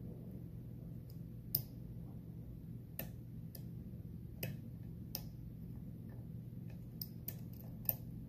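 Dimple pick clicking against the pins inside a Mul-T-Lock Interactive+ dimple lock with serrated drivers while it is picked under tension: about a dozen small, irregular metallic clicks, the sharpest about one and a half seconds in and near the end.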